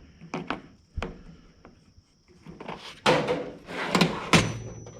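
Hand tools being handled: a few sharp clicks and knocks, then a burst of metallic clatter and knocks about three seconds in.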